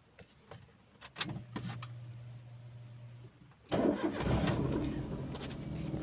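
A Maruti Suzuki Alto's three-cylinder petrol engine starting: a few clicks and a steady low hum for about two seconds, then the engine catches suddenly about three and a half seconds in and settles into a steady idle.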